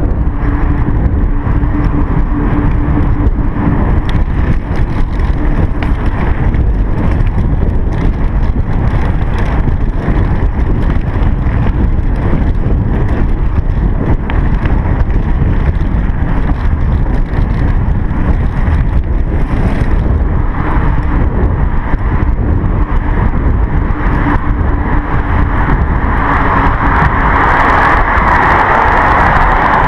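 Wind buffeting and rumble on a chest-mounted GoPro during a bicycle ride, loud and steady. A faint steady hum sits under it in the first few seconds, and a brighter hiss joins over the last few seconds.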